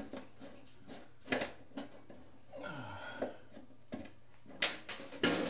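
Sharp metallic clicks and knocks, about five spread over a few seconds, from hands working on the steel cover of a residential breaker panel.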